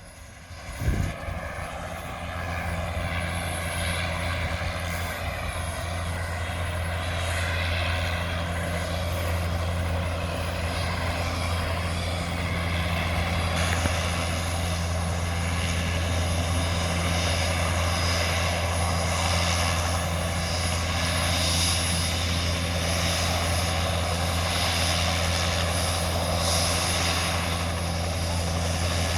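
Crop-spraying helicopter's rotor and engine running steadily, with a brief thump about a second in.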